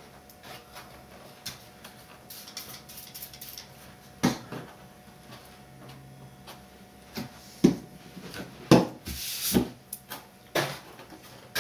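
Foam RC model airplane and tools being handled on a workbench: scattered light knocks and rubbing, with several louder thumps in the second half as things are set down.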